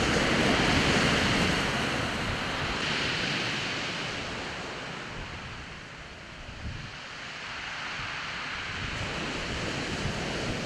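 Sea waves washing on a shingle beach, with some wind on the microphone. The surf swells at the start, eases toward the middle and builds again near the end.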